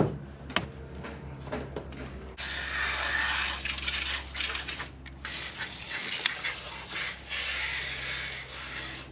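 Hand ratchet clicking in short strokes as the PCV valve's fasteners are undone. This is followed by a steady hiss lasting about six seconds, broken once briefly.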